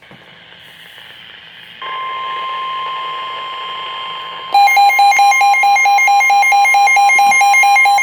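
Weather-radio hiss, then about two seconds in a steady single-pitch warning alarm tone starts: the NOAA Weather Radio 1050 Hz tone that comes before a warning broadcast. About four and a half seconds in, loud rapid electronic alarm beeping, about five beeps a second, joins it and stops near the end.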